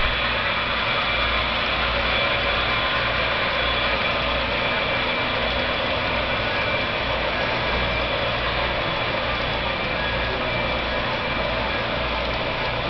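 HO scale DCC model trains running on the layout: a steady engine-like rumble and hum with a few high steady whines, unchanging throughout.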